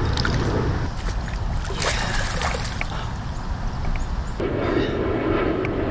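Water splashing and sloshing as a hooked blue catfish thrashes at the surface beside a canoe, with scattered sharp splashes over a steady low rumble. About four and a half seconds in the background changes abruptly to a denser steady hiss.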